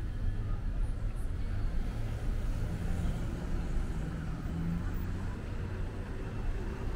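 Steady low rumble of street traffic, with a faint engine hum rising briefly in the middle.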